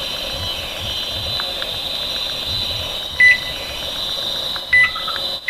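Steady hum from an RF meter's speaker picking up a distant cell phone tower, with two short sharp beeps, the loudest sounds, about three and five seconds in, from presses on a microwave oven's keypad.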